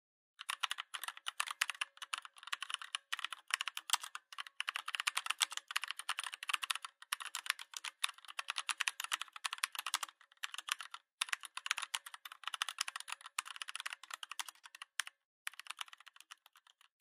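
Fast typing on a keyboard: dense rapid key clicks in runs broken by short pauses.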